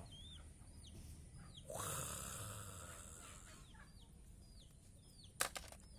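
Short, high bird chirps repeating every half second or so. About two seconds in there is a rustling whoosh lasting about a second and a half, and near the end two sharp clicks.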